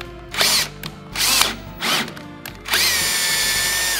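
Cordless drill running a thread tap into an aluminium spindle mounting plate: three short trigger pulls, the motor whine spinning up and down each time, then a longer run at a steady high whine that cuts off near the end.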